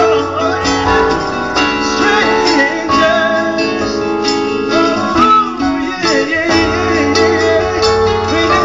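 Live song performance: a male singer holding and bending sung notes over acoustic guitar and keyboard accompaniment.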